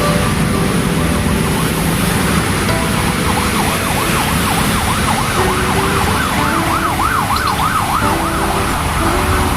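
An emergency vehicle's siren yelping in fast rising-and-falling sweeps, about three a second, starting about three seconds in and stopping near the end, over steady road and rain noise.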